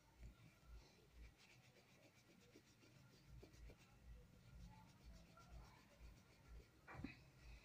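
Faint pencil strokes scratching on drawing paper, with a single soft tap near the end.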